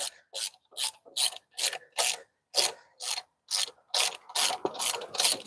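Hand ratchet wrench clicking in short, regular strokes, about two or three a second, as a bolt on a DT12 transmission's shift mechanism is backed out by hand.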